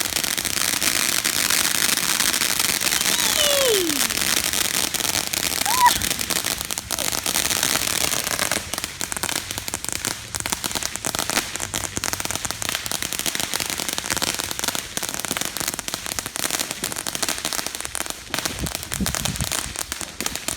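Consumer fireworks crackling densely, with a sharp bang about six seconds in, then a long run of rapid, scattered pops and crackles.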